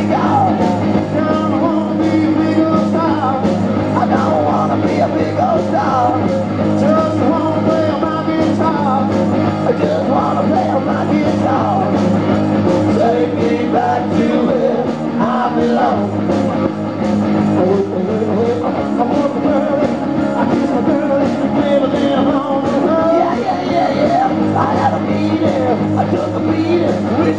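Live garage rock band playing: electric guitars, a steady drum beat and a man singing.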